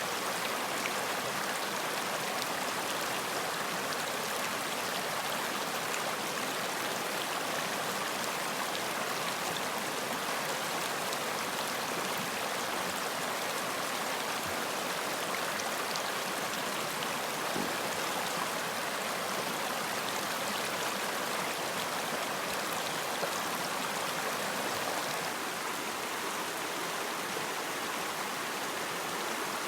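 Running water of a stream flowing steadily, an even rushing with no breaks.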